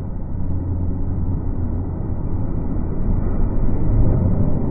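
Nankai electric commuter train rolling past close by: a low, steady rumble that grows louder near the end.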